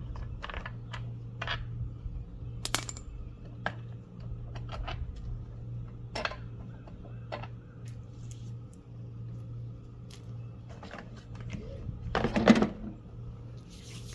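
Scattered metal clicks and clinks of a socket wrench and small parts being handled while the mower's screws and starter are taken off, over a steady low hum. There is a louder clatter near the end.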